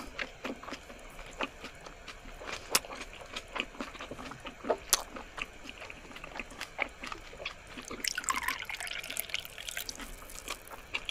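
Mukbang mouth sounds: scattered wet clicks and smacks of chewing. About eight seconds in, liquor is poured from a glass bottle into a small glass, trickling for a couple of seconds.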